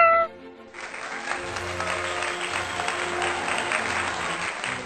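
A cartoon cat's meow falls away at the start. Then, under light background music, a crowd bursts into applause about a second in and keeps clapping steadily.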